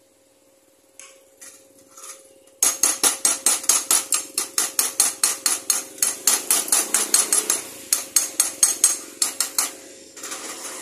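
A hammer striking metal in a fast run of sharp blows, about five a second. The blows start abruptly a couple of seconds in and thin out near the end.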